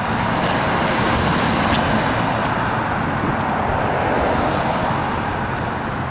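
Road traffic passing: a steady rush of tyre and engine noise from cars driving by, easing off slightly near the end.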